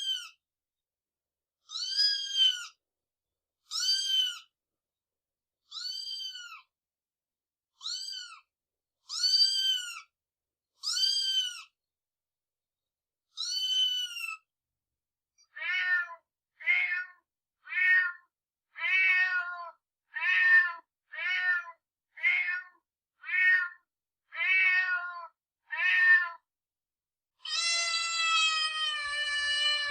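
Domestic cat meows played one after another as separate clips, with dead silence between them. First come about eight high-pitched, arching meows, one every second or two. Then a lower-pitched cat meows quickly, about once a second, and near the end gives one long, drawn-out meow.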